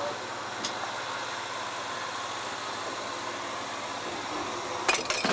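Steady running noise of an old Berlin S-Bahn class 476 quarter-train creeping up to another unit. Near the end come several sharp metallic clanks close together as the couplers meet and lock.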